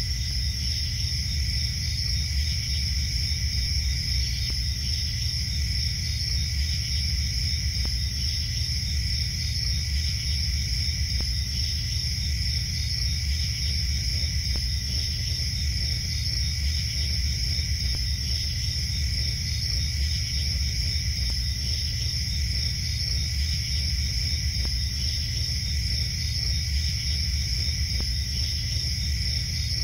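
Steady night ambience of crickets chirping, over a constant low rumble.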